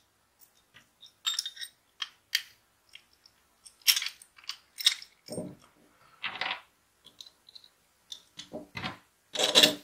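Aluminium profile parts and small metal hardware (joint connector, nuts) handled and fitted together by hand on a table: irregular clicks, clinks and light knocks.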